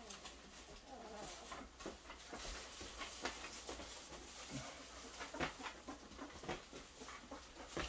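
Faint squeaks and whimpers of young puppies whose eyes are just opening, with scattered soft clicks and rustles as they shuffle and are handled.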